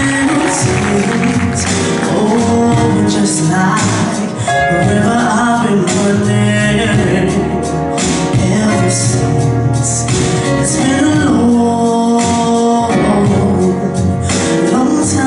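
A woman singing a soul ballad live, her voice gliding and holding notes over a backing band.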